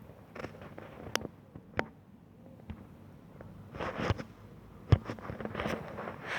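Ducks making short, noisy, unpitched calls about four and six seconds in, among scattered clicks and taps, the loudest a sharp knock about five seconds in.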